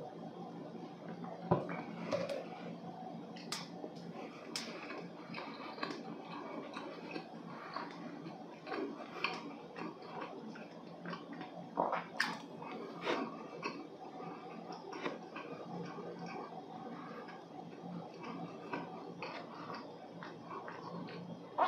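Close-miked chewing of walnut cakes (hodu gwaja), whose frozen-bought dough is dense and dry, with irregular wet mouth clicks, smacks and swallows.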